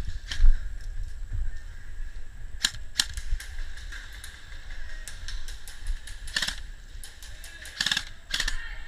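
Airsoft guns firing, heard as scattered sharp snaps with a few short bursts, the loudest ones in the last few seconds.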